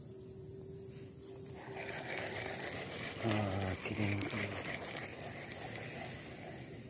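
Spinning fishing reel being cranked, its gears and bail giving a steady whirring, clicking noise as line is wound in. A voice sounds briefly twice, about three and four seconds in.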